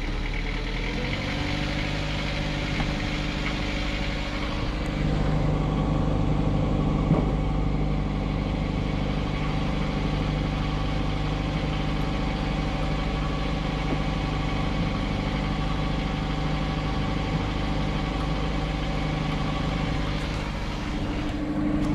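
A 1985 Beneteau First 38's inboard diesel engine running just above idle, then stepping up in speed as the throttle lever is pushed: once about a second in and again, a little louder, around five seconds in. It then runs steadily at the higher speed.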